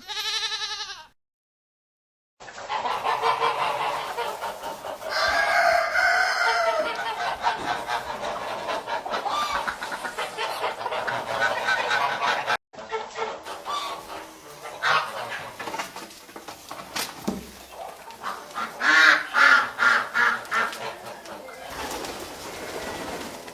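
Chickens clucking, several birds calling over one another. A short call comes at the very start, then the busy clucking after a brief gap. The sound breaks off suddenly about halfway through, then resumes, with a run of loud, evenly spaced clucks near the end.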